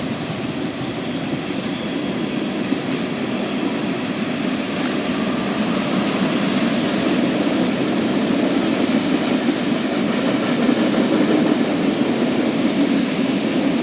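Norfolk Southern freight train rolling by on the rails: a steady rumble that grows louder about halfway through, with no horn.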